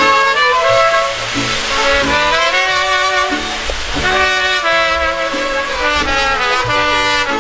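Brass band music: trumpets and other brass playing a melody in held notes that step from one pitch to the next.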